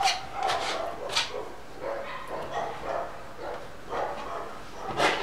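Dogs barking over and over in a run of short barks and yips, with a few sharper, louder barks at the start, about a second in and near the end.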